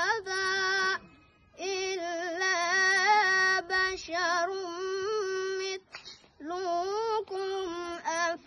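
A young boy's voice reciting the Quran in melodic tajweed style, holding long, ornamented notes. The recitation breaks off for a breath twice, about a second in and around six seconds in.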